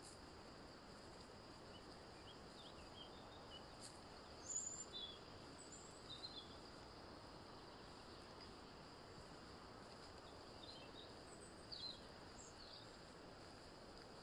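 Near silence: faint steady hiss with a handful of brief, faint high chirps scattered through it.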